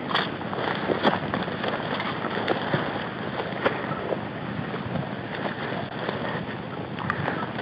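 Tall meadow grass brushing and swishing against the camera as it moves through, with irregular sharp crackles of stalks over a steady rush of wind on the microphone.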